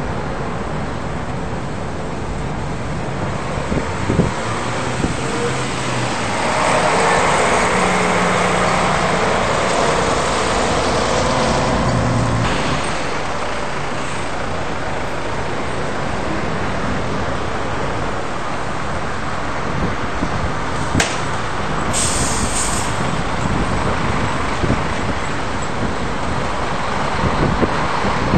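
Busy city street traffic: cars and a heavy vehicle pass, swelling in the first half, with a short hiss about two-thirds through. Near the end a tram draws near on the rails.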